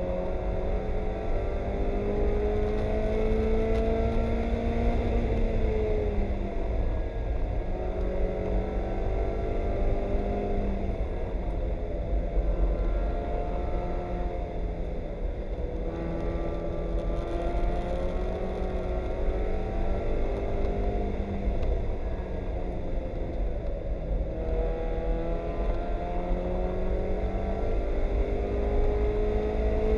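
Spec Miata race car's four-cylinder engine heard from inside the cockpit, running hard over a heavy low rumble. Its pitch climbs and then drops back several times as the driver shifts or lifts.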